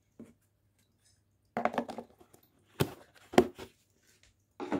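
Handling noise: a few sharp clicks and knocks, a cluster a little under two seconds in, then single knocks, the loudest about three and a half seconds in.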